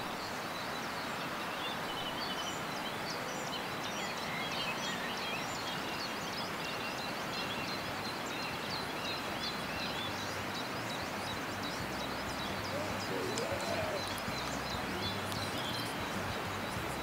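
Dawn birdsong: many small birds chirping and singing at once, in many short, high notes, over a steady background hiss.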